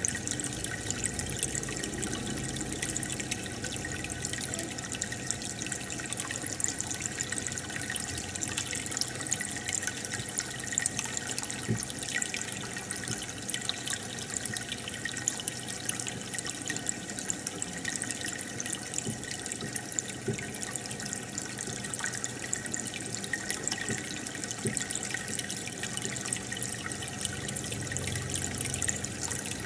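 Aquarium water bubbling and trickling steadily from the tank's aeration and filter, a dense patter of small bubble ticks over a faint steady hum.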